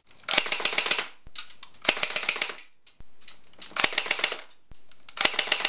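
Walther battery-powered electric airsoft gun firing on full auto in four short bursts. Each burst is a rapid rattle of shots lasting under a second, and they come about a second and a half apart.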